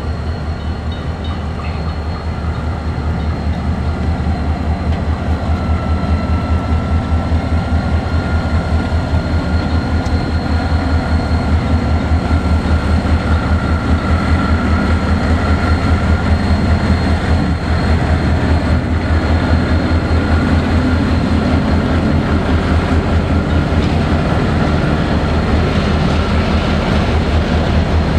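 Two ALCO diesel locomotives on a rock train pass close by with a heavy, rapidly pulsing engine throb and a steady high whine, getting louder over the first few seconds. Toward the end, the hopper cars rumble past on the rails.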